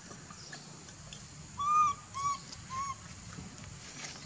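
Baby macaque giving three short, high coo calls, each rising and falling in pitch, the first the longest and loudest: an infant calling for its mother to nurse.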